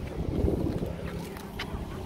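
Wind rumbling on the microphone, stronger in the first second, with a couple of faint ticks a little after halfway.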